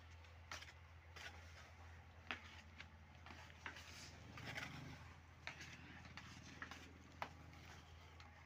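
Near silence: a faint steady low hum with scattered faint clicks and ticks.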